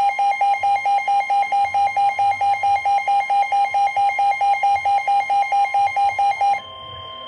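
Electronic emergency-alert alarm beeping rapidly, about six beeps a second. About six and a half seconds in, the beeping stops and a quieter steady alert tone carries on.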